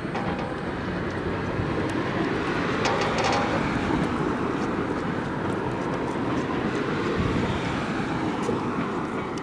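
Freight train of tank cars rolling past and away: a steady noise of steel wheels on rail, with scattered clicks and clanks from the cars.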